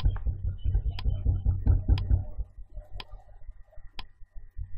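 Countdown timer sound effect ticking once a second, with a low rumbling noise under the first two seconds.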